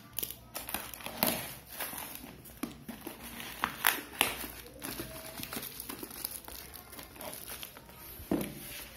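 Plastic bubble wrap crinkling and rustling in irregular bursts as a wrapped item is handled and pulled out of a cardboard box.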